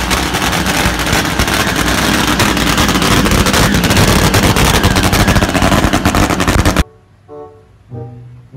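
Drag-racing motorcycle engine running very loud, with a fast crackling beat of firing strokes, for about seven seconds before cutting off suddenly.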